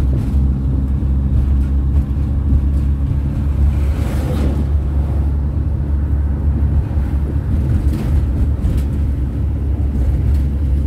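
Volkswagen Kombi van driving at road speed: a steady low engine and road rumble, with a brief swell of noise about four seconds in.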